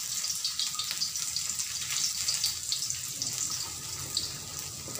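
Pieces of ginger sizzling in hot oil in a wok: a steady hiss with fine crackles.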